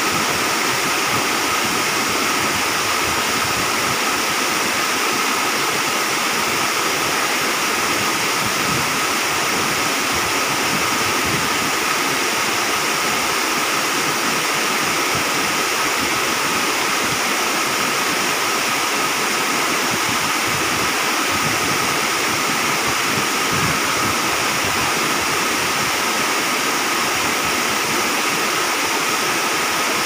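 Curtain waterfall and the rapids below it: a steady, unbroken rush of falling and running water.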